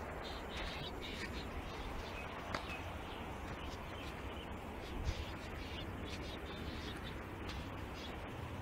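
Open-air ambience by a flooded river: a steady rush of wind-like noise with low rumble on the phone microphone, a few faint bird chirps in the first few seconds, and a couple of light handling knocks.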